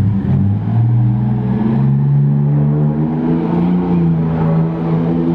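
Detroit Diesel 6V92 two-stroke V6 diesel of a 1988 Seagrave fire engine accelerating away, its note rising in pitch over the first couple of seconds, holding steady, then dropping near the end.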